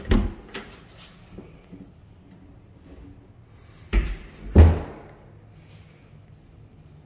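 A few knocks and thumps: a sharp one at the start, then two more about four and four and a half seconds in, the last the loudest.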